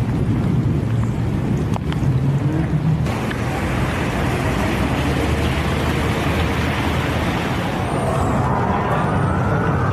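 A loud, steady, low rumbling noise, with an emergency siren starting to wail near the end, rising in pitch.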